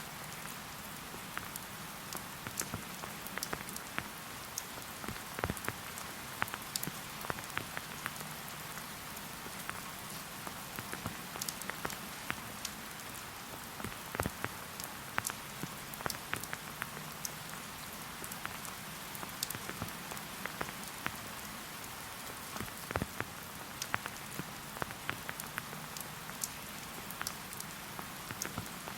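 Steady rain falling as an even hiss, with many separate drops ticking sharply and close at irregular moments.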